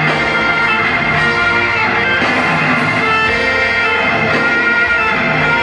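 A live band playing a song in concert, with held instrument notes over a continuous full backing at a steady level.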